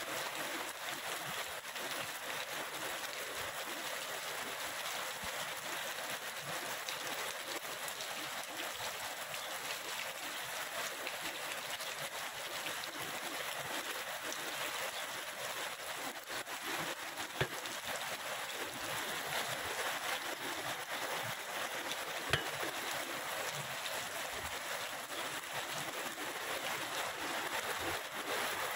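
Heavy rain falling steadily: an even hiss, with a couple of sharp single taps of drops in the second half.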